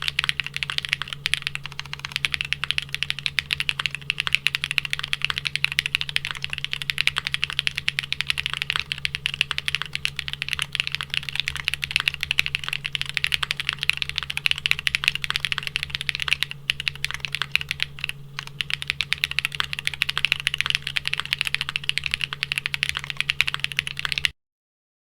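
Continuous typing on a Geonworks F1-8X V2 mechanical keyboard in its linear build: lubed Geon Black linear switches with 67.5 g springs in an aluminium plate, under GMK keycaps. The keystrokes are dense and even, and they cut off abruptly near the end.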